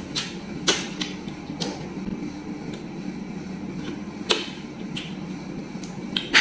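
Eating by hand: several sharp, wet mouth smacks and finger-sucking clicks at irregular intervals as fish head curry is chewed and sucked from the fingers, over a steady low hum.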